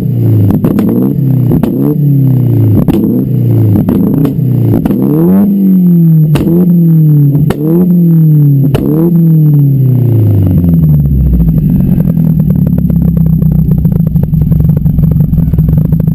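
Nissan CA18DET turbocharged four-cylinder revved in repeated blips through a straight-through 3-inch exhaust and blast pipes, each rev rising and falling, quick at first and then longer, with sharp cracks on the overrun. About eleven seconds in it drops back to a steady idle.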